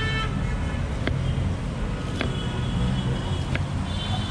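Steady road-traffic rumble, with a knife tapping through guava onto a small wooden cutting block three times, roughly a second apart.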